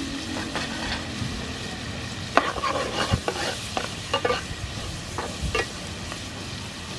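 Clam meat sizzling in oil in a frying pan while a metal spatula stirs it. From about two seconds in, the spatula scrapes and clacks against the pan several times.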